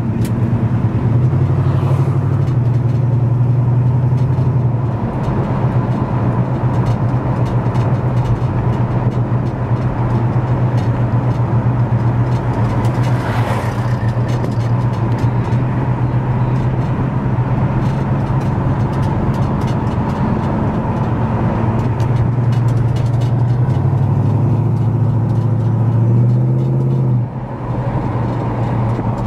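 A classic Pontiac's engine running as the car cruises, heard from inside the cabin over tyre and road noise. Its low drone steps up and down in pitch a few times and drops briefly near the end.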